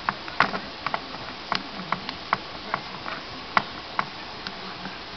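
Cloth rubbing over a motherboard's graphics chip, wiping off old thermal paste before a reflow: a low hiss with irregular sharp clicks and ticks, about three a second.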